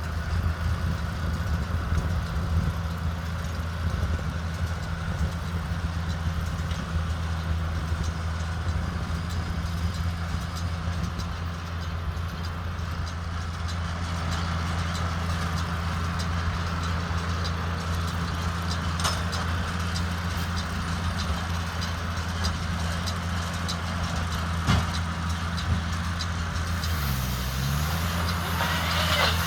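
JCB Fastrac 2170 tractor engine running steadily under load while driving a Fusion 2 combined baler-wrapper in straw. The engine's pitch dips briefly and recovers near the end, and there are a few clicks and knocks from the machinery.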